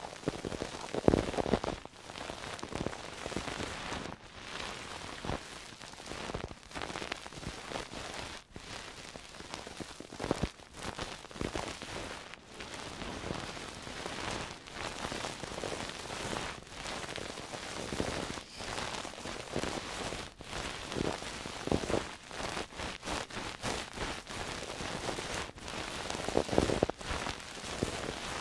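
Close-miked ASMR trigger sounds: an object rubbed and worked right against the microphone, giving a dense, continuous crackling and rustling with many small clicks. It swells louder about a second in and again near the end.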